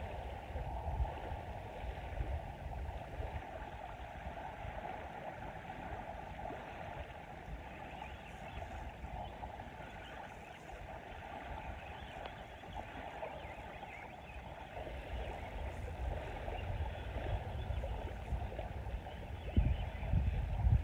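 Wind rumbling on the microphone over small waves washing on a sandy shore, with louder low rumbles near the end.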